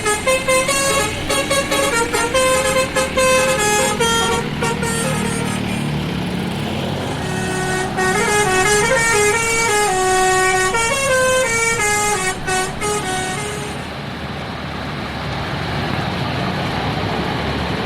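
Basuri multi-tone musical bus horn playing a tune of sustained notes that step up and down in pitch. About fourteen seconds in the horn stops, leaving a steady rumble of vehicle and road noise.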